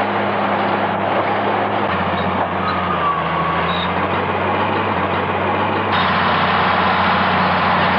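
Bulldozer's diesel engine running steadily: a low hum under dense mechanical noise, which grows brighter about six seconds in.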